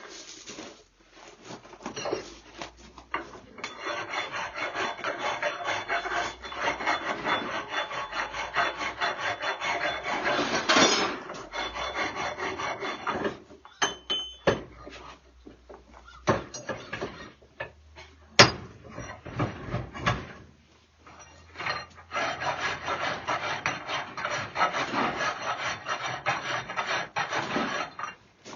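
Hand file scraping over a steel rebar anvil horn in long runs of strokes, rounding and shaping it, with a few sharp metal knocks in the pause between the runs.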